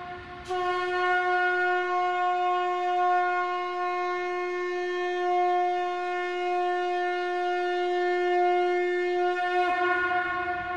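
Conch shell (shankh) blown in one long steady note lasting about nine seconds. Its pitch dips as the blast ends.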